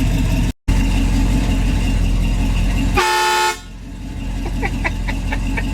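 1966 Chevy pickup's engine idling, then one short, half-second blast of its air horn about three seconds in. A few light clicks follow near the end.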